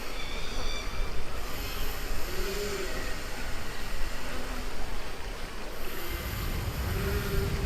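Steady rushing water on the Kali River Rapids raft ride, with a low rumble swelling near the end.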